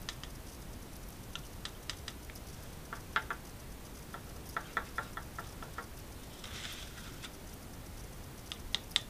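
Scattered light clicks and taps of a small screwdriver and tiny screws against a hard drive bracket and the desk, in irregular clusters, with a brief scraping rustle about two-thirds through.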